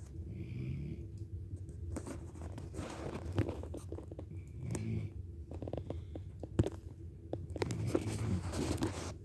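A sleeping pet snoring: slow breaths every few seconds, some with a whistling note and others with a crackling, rattly snort, and one sharp click about two-thirds of the way through.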